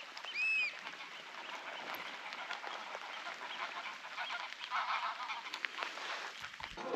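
A single short, high bird call about half a second in, rising and falling in pitch, over a steady faint outdoor hiss.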